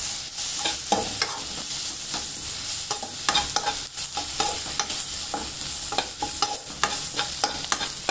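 A metal spoon scrapes and taps around a non-stick kadai while stirring a frying onion-tomato masala, over a steady sizzle of hot oil. The masala is being sautéed with chilli powder until the raw spice smell cooks off.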